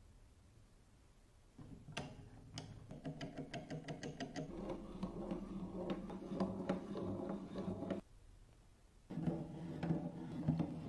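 Music with percussion. It starts about a second and a half in, breaks off for about a second near the end, then resumes.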